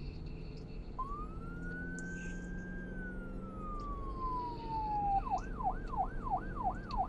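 An electronic emergency-vehicle siren: a single tone comes in about a second in, rises and holds, then slides slowly down in a long wail, and near the end switches to a fast yelp cycling up and down about three times a second. A low steady hum runs underneath.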